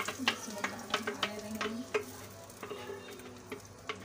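Ground chana dal paste going into hot ghee in an aluminium pot, sizzling and frying. Over it come irregular sharp clicks and scrapes as the blender jar is scraped and tapped against the pot to empty it.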